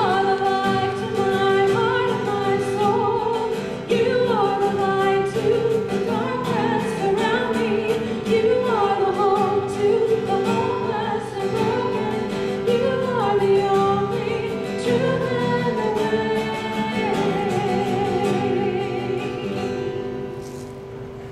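A woman singing a worship song through a microphone and PA, accompanied by acoustic guitar. Near the end she holds a long note with vibrato and the music fades out.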